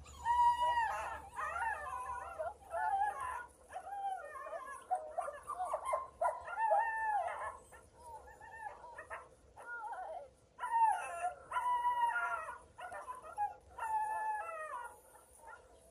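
German Shepherd puppy whining and yelping in high, wavering cries while tugging on a rag, with a short lull about eight seconds in before the cries pick up again.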